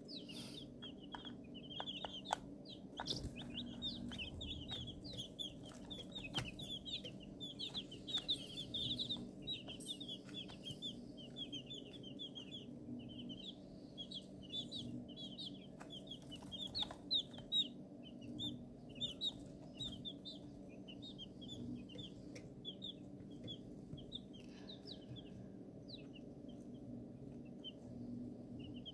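A group of young chicks peeping, many short high chirps overlapping, growing sparser toward the end. Under them runs a steady low hum.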